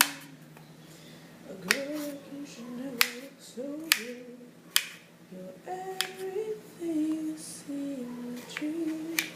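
A voice singing a tune in held, stepping notes, with sharp knocks from kitchen work, about seven of them, spread through it.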